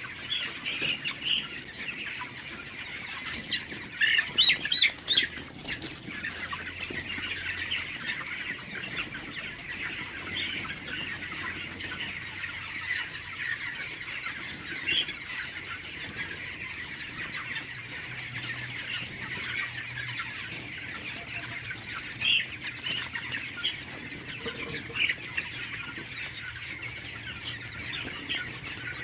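A flock of desi chickens clucking and calling without a break, with louder calls standing out about four to five seconds in and twice more past the twenty-second mark.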